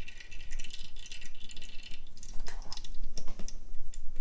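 Canned chickpeas and their liquid pouring from a carton into a metal mesh strainer over a bowl. First a steady trickle of liquid runs through the mesh; then, about halfway, the chickpeas tumble and rattle in the strainer with scattered clicks.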